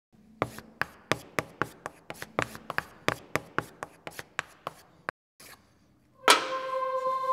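Typing clicks, sharp keystrokes at an uneven pace of about four to five a second, in time with text appearing letter by letter. Near the end, music starts suddenly with held notes.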